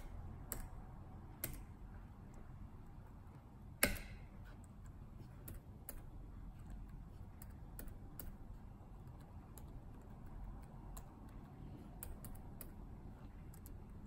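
Scattered single presses of computer keyboard keys, a dozen or so spaced irregularly, with one sharper, louder click about four seconds in, over a faint low hum.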